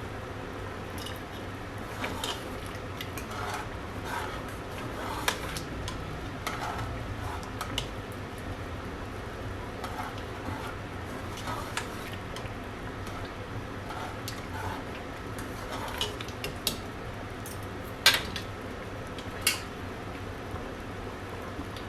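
A metal utensil clinking and scraping against a cooking pot in irregular strokes, with a few sharper knocks near the end. A steady low hum runs underneath.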